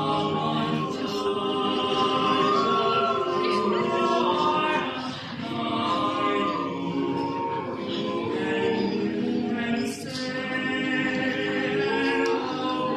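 Mixed-voice a cappella group of seven, sopranos and altos with tenors and basses, singing in close harmony with no instruments, holding chords and moving between them. About ten seconds in there is a short sibilant consonant.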